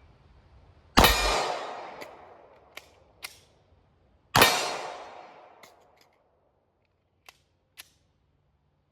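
Two pistol shots from a compensated 9mm PSA Dagger, about three and a half seconds apart, each trailing off slowly. Lighter clicks and knocks come between and after the shots.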